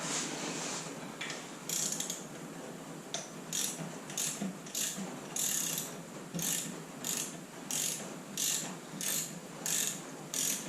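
Hand ratchet wrench swung back and forth in steady strokes, one burst of pawl clicks about every two thirds of a second, turning the forcing screw of a puller. The first couple of seconds are more irregular before the rhythm settles.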